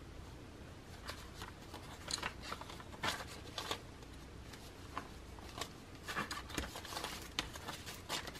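Paper banknotes rustling and snapping as they are handled, fanned and counted out by hand, in short irregular crackles.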